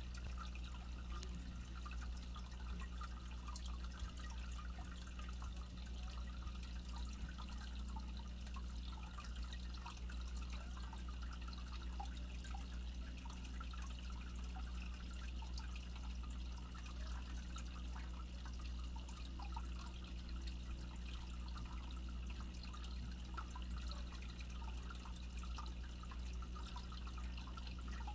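Aquarium air line bubbling: a steady stream of small bubbles trickling and popping at the water surface, over a low steady hum.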